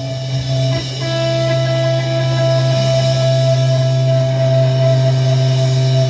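Music with guitar: sustained, droning tones held over a steady low note, the chord changing about a second in.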